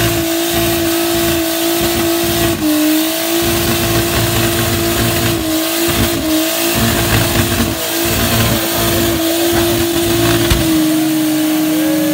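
Car engine held at high, near-constant revs during a burnout, dipping briefly in pitch a few times, over the noise of the rear tyres spinning on the pavement.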